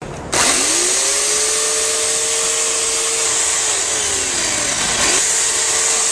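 Worx electric chainsaw motor starting up: a whine rises quickly to a steady high-pitched run, with chain hiss over it. About two-thirds of the way through, the pitch sags down and then snaps back up to full speed.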